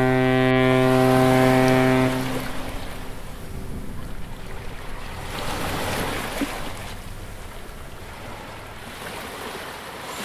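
A ship's horn sounds one long steady blast that stops about two seconds in, followed by surf washing in with wind.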